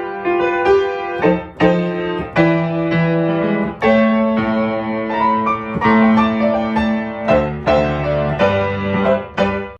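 Piano played in a run of sustained chords, a new chord struck every second or so, cutting off abruptly at the end.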